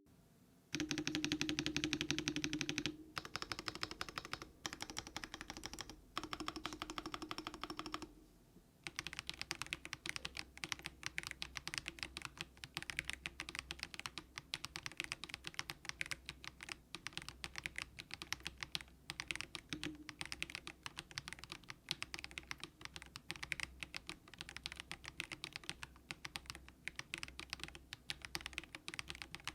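Typing on a Monstar Gear NINJA87 plastic-case mechanical keyboard with light, low-force Haimu Sea Salt switches. It opens with four bursts of very rapid keystrokes, then turns to steady, continuous typing about eight seconds in.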